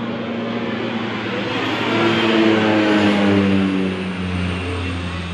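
A motor vehicle passing on the road. Its engine note swells, slides slowly down in pitch, and fades again.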